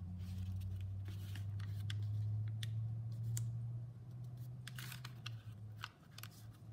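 Stacked sheets of origami paper rustling and crackling in short, scattered bits as a corner is lined up and a crease is pressed down by hand, over a steady low hum.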